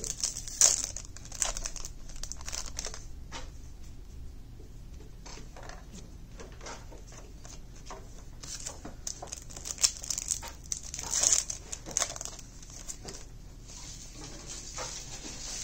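Foil trading-card booster pack wrappers crinkling and being torn open, with cards being pulled out and handled. Irregular crackles come in clusters, thickest near the start and again past the middle.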